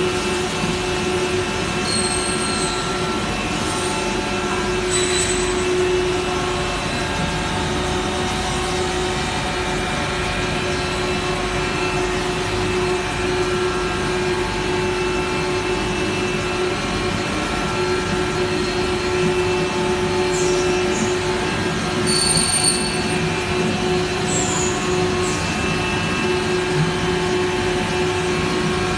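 uPVC profile extrusion line running: a steady machine drone with a constant hum, broken by a few brief high squeaks.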